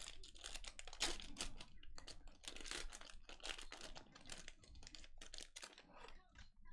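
A football trading-card pack's wrapper crinkling and tearing open by hand, then the cards inside rustling and flicking as they are slid out and thumbed through: a rapid run of small clicks and crinkles that thins out near the end.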